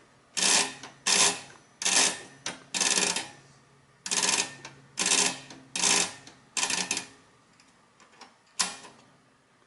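Amano 6800 mechanical punch clock's mechanism clacking as its time is stepped and set by hand: about nine sharp clacks, roughly one a second, with a pause before the last.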